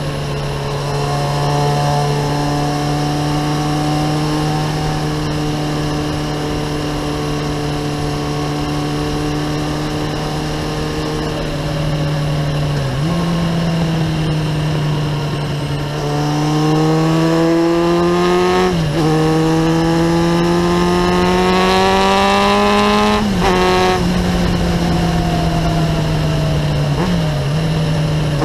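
Kawasaki ZX-9R inline-four sportbike engine with a Remus exhaust, heard from the rider's seat while under way. It runs at a steady pitch for the first half, then climbs in pitch under acceleration, broken by quick drops at two gear changes.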